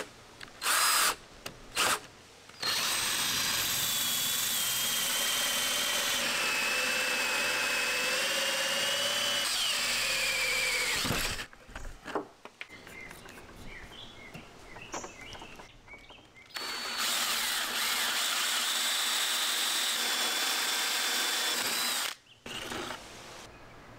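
Cordless drill briefly driving screws in short bursts, then running a hole saw through a solid core wood door for about eight seconds, its whine sagging in pitch just before it stops. After a quieter stretch the drill runs again for about five seconds, boring the smaller latch hole through the door edge.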